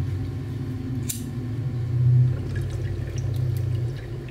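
Water bubbling in a mason-jar bong as smoke is drawn through it: a steady low gurgle. A single sharp click comes about a second in.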